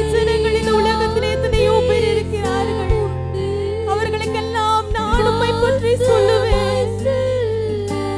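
Women's choir singing a Tamil Christian worship song into microphones, in unison over instrumental backing.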